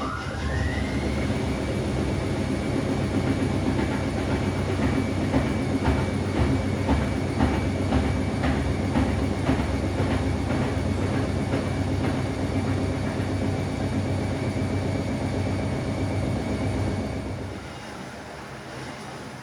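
Gorenje PS 060 A washing machine's Končar motor whining up in pitch as the drum goes into its spin, then holding a steady high whine over a low rumble with a regular ticking. About 17 seconds in the whine stops and the sound drops away.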